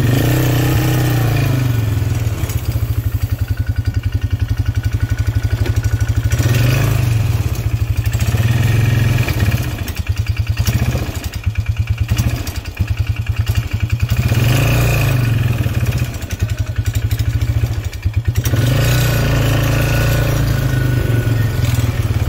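A small engine running steadily up close, with fast even firing pulses; its level and pitch dip a few times in the middle as the throttle eases and picks up.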